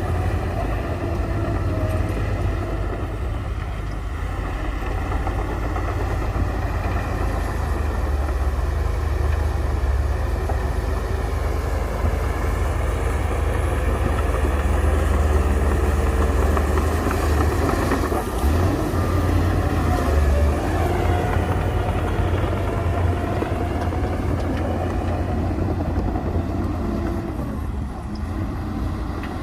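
Heavy earthmoving machine's diesel engine running steadily, with a shift in pitch about two-thirds of the way through.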